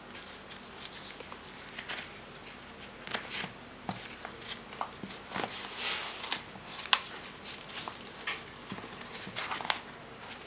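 Clear plastic wrapping crinkling and rustling in scattered short handfuls as a cloth flash-diffuser softbox is unwrapped by hand.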